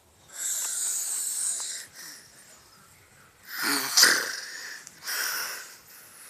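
Snoring: three heavy, hissing breaths, the loudest one about halfway through with a low rattle under the hiss.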